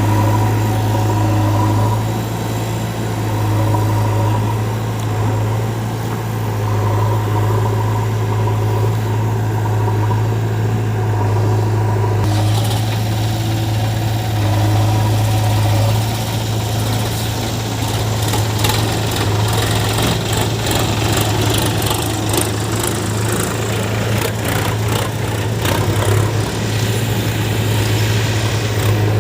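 Heavy diesel engine running steadily with a strong low hum. About halfway through, scraping noise comes in, followed by many rapid clattering knocks, typical of a loader at work.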